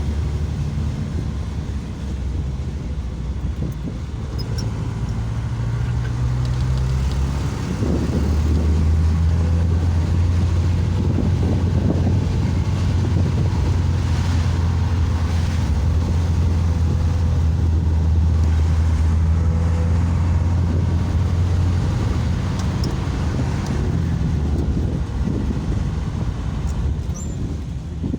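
A motor vehicle's steady low engine and road rumble, growing louder about eight seconds in and easing off again near the end.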